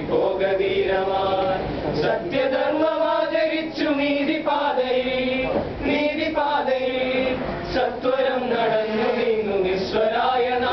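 Small group of male voices singing together unaccompanied, a cappella, with long held notes gliding from one pitch to the next.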